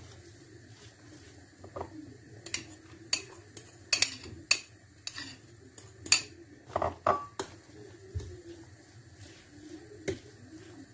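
Utensil clinking and scraping against a glass mixing bowl while stirring a ricotta, cheese and meat filling. There is a run of sharp clinks in the middle few seconds, one of which rings briefly.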